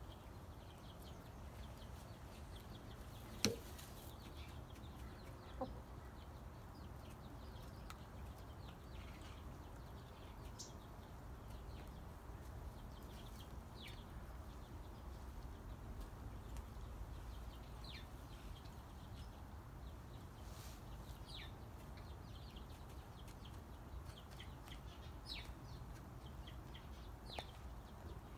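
Barred Rock and red hens dust bathing in sand, making soft occasional clucks, with faint short high chirps now and then. A sharp tap about three and a half seconds in is the loudest sound, with a smaller one a couple of seconds later.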